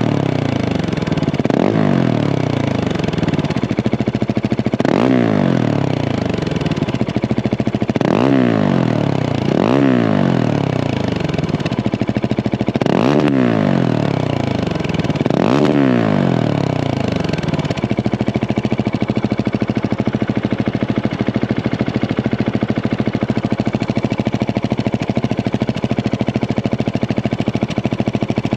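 Husqvarna 701 Supermoto's single-cylinder engine, breathing through a Remus aftermarket exhaust, revved in six quick throttle blips, each rising sharply and falling back. It then idles steadily for the last ten seconds or so.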